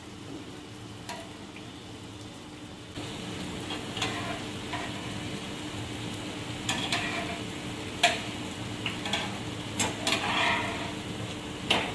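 Jalebi batter frying in hot ghee, a steady sizzle that gets louder about three seconds in. Metal tongs tap and scrape against the pan now and then as the spirals are turned.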